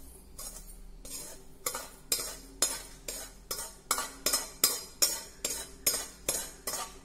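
Slotted steel spoon scraping roasted semolina out of a stainless steel kadai into a bowl, in short repeated strokes about two a second that grow louder.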